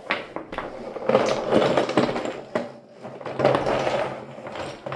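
Toy building blocks clattering and rattling as a pile of them is tipped out of a container, many small knocks in quick clusters.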